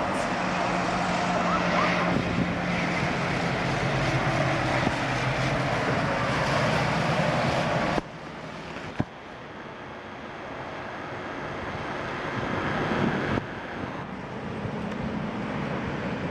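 City tram running, with steady low hum over street traffic noise; the sound drops abruptly about eight seconds in, a single click follows, and it changes abruptly again near the end.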